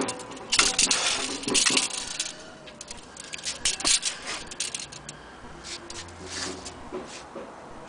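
Metallic clinking and rattling as a steel tape measure and small metal toy sewing machines are handled, with a dense run of sharp clicks in the first two seconds and scattered clicks after.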